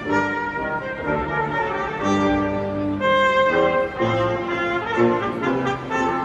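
Orchestral processional music with brass and strings: sustained chords that move from note to note at a stately pace, at a steady level.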